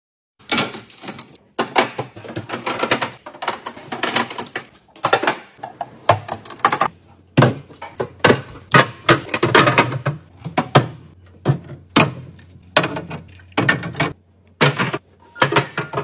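Clear plastic organizer bins being handled and set onto glass refrigerator shelves: an irregular run of knocks, clunks and short scrapes, starting about half a second in.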